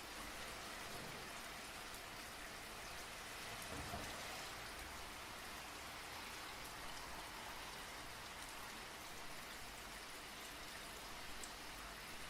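Fast, continuous typing on a DZ60 mechanical keyboard with lubed Bobagum switches, a small 5 V solenoid inside firing with each keypress to add a typewriter-like clack, so the keystrokes blur into a steady patter.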